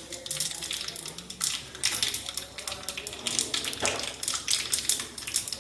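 Mustard and cumin seeds crackling in hot oil for a tempering (tadka), with green chillies and sesame seeds just added: a dense, irregular crackle of rapid pops.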